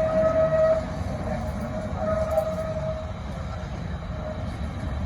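Locomotive whistle of KFRX #19 blowing a single steady note: one blast ends about a second in, and a second blast of about a second comes two seconds in. The low rumble of the train rolling on the track runs underneath.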